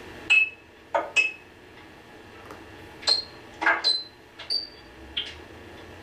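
About nine short, sharp clicks at uneven intervals, several ending in a brief high ringing tone, like small hard objects clinking.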